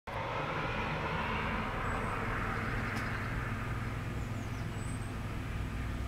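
Steady background engine rumble, like distant traffic or a passing aircraft, with a hiss that eases over the first few seconds. Two faint, short, very high chirps sound near 2 s and 5 s, and there is a single small click about halfway.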